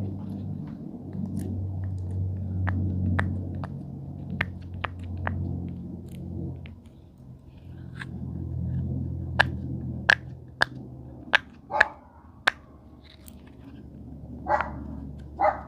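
Sharp, separate plastic clicks and taps from fidget toys being handled, coming faster in the second half and ending with a couple of short rustling scrapes. Under them runs a low hum that rises and falls in slow waves and fades out about two-thirds of the way through.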